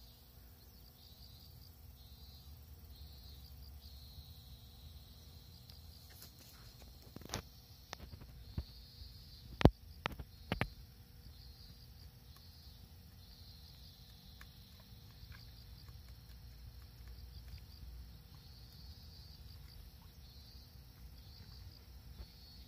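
Field insects, crickets by their sound, chirping in a steady run of pulsed trills. A few sharp clicks cut through between about seven and eleven seconds in, the loudest near ten seconds.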